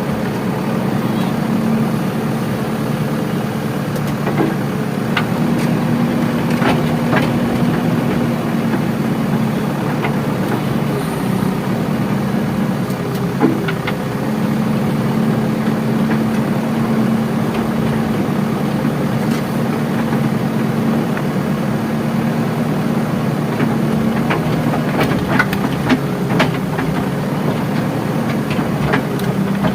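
Diesel engine of a JCB 3DX backhoe loader running steadily, its pitch stepping up a little at times under load, with scattered knocks and clanks.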